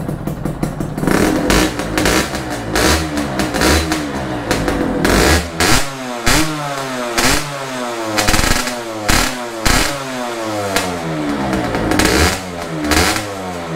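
Honda Nova Dash 125 two-stroke single with a DBS expansion-chamber exhaust, revved repeatedly at half throttle while standing, roughly one blip a second. Each blip rises and falls in pitch, and sharp cracks come between some of them.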